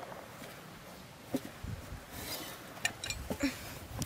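Pliers and hand tools clinking while a small rubber tyre is worked off its steel rim and handled: a few scattered sharp clicks and clinks, with soft thuds of the tyre and a brief scrape.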